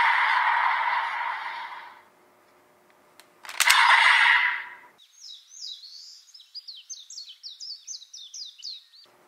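A loud static-like hiss that fades out over the first two seconds, a couple of clicks and a second short burst of hiss, then a small bird singing a run of quick, falling chirps over the last four seconds.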